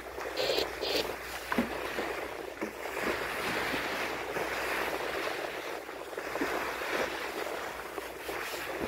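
Bow wave of a large ship rushing and splashing as the hull pushes through the sea, a steady wash of water that swells and eases.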